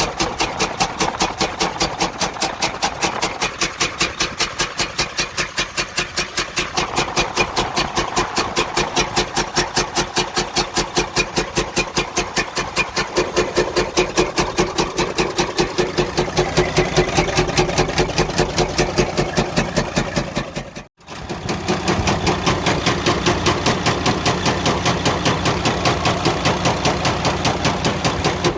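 Detroit DD15 inline-six diesel engine of a Freightliner Cascadia idling with a loud, fast, even knocking, the sign of major internal engine damage. The sound breaks off briefly about two-thirds of the way through and resumes unchanged.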